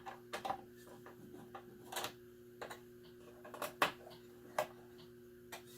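Scattered light clicks and taps of a metal wrench and screws being worked into a miter saw's table insert, as the screws are driven down to hold the insert.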